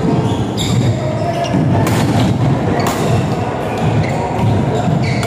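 Badminton rally on an indoor court: sharp racket strikes on the shuttlecock about a second apart, with short high shoe squeaks and thuds of players' footsteps on the court.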